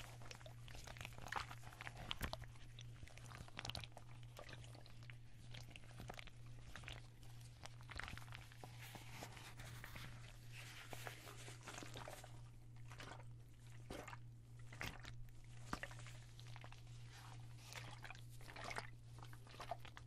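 Water-filled cloth ice bag squeezed and kneaded close to the microphone: irregular soft crinkles, squelches and small clicks of fabric and water.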